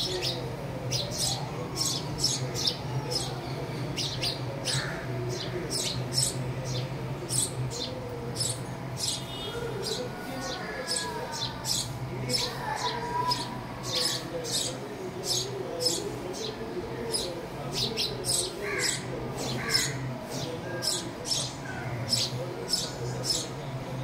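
House sparrow chirping over and over, short high chirps at about two to three a second, over a steady low hum.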